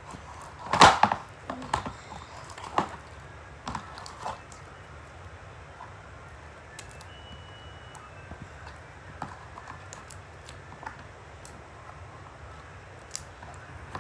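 Slime being handled in a clear plastic bag and container: a loud crackle of plastic about a second in, then a few smaller clicks and squishes over the next few seconds, dying down to a faint steady hum with an odd tick.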